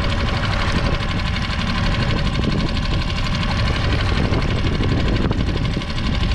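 Small outboard motor on a solo skiff running steadily.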